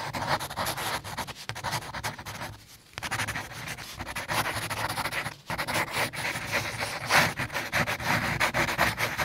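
Pencil scratching on paper in quick, rapid strokes, with short pauses twice.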